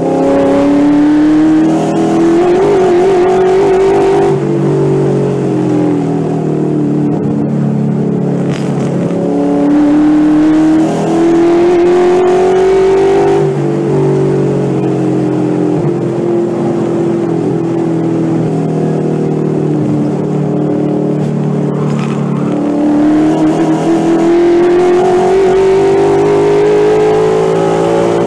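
Ford 5.0L Coyote V8 in an SN95 Mustang race car running hard on track, heard from inside the car. The pitch climbs several times under throttle and drops in between as the driver lifts and shifts, reaching about 6,700 rpm near the end.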